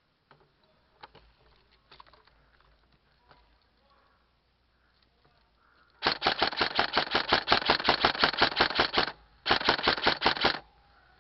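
Airsoft rifle firing on full auto, about ten shots a second: a long burst of about three seconds starting some six seconds in, a brief pause, then a burst of about a second. Faint clicks and rustling of movement before it.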